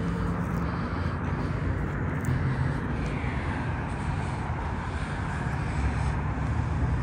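Steady low rumble of road traffic, with vehicles passing on the road.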